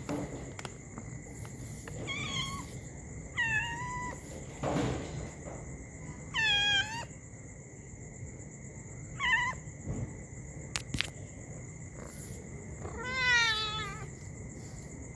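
Domestic cat meowing to be fed: five separate meows a few seconds apart, most falling in pitch, the last one longer and louder.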